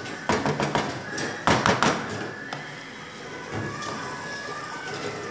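Two quick runs of sharp knocks and clatters, the first just after the start and the second about a second and a half in, then quieter.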